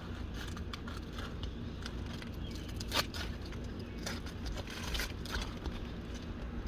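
Asphalt roof shingles being pried loose from their seal strips: scattered scraping and crackling clicks, with one sharp snap about three seconds in.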